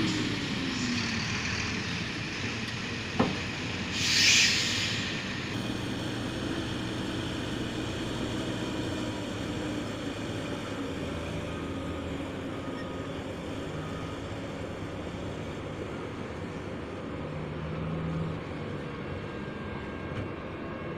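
Heavy mining machinery running in an open-cast coal pit: a steady low diesel drone with faint hums, its pitch falling in the first second. There is a sharp click about three seconds in and a brief hiss about a second later.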